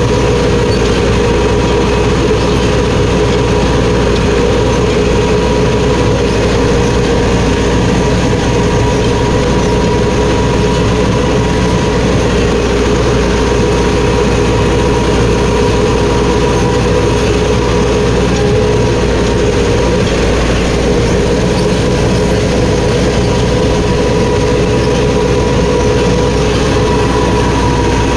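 Massey Ferguson 4x4 tractor's diesel engine running steadily under load, heard close up from the driver's seat as it pulls through a flooded, muddy paddy field. The sound is loud and even throughout, with a constant whine over the engine's rumble.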